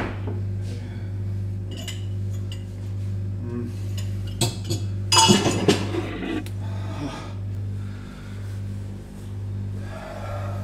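Kitchenware clinking and clattering (cups, dishes and cutlery handled on a counter), with a few scattered clinks and a busier burst of clatter about five seconds in, over a steady low hum.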